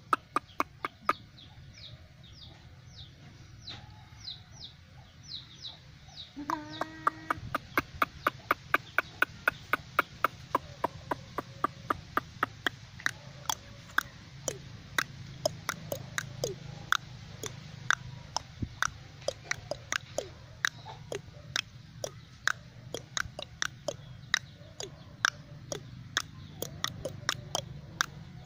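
Birds cheeping: short falling chirps repeated about two to three a second, louder and more regular from about seven seconds in, with a brief lower call just before. A steady low hum runs underneath.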